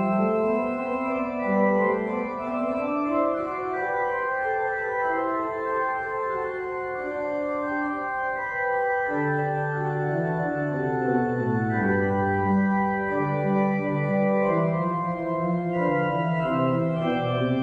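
Church organ playing slow, sustained chords, with a lower line of held notes that moves step by step beneath them.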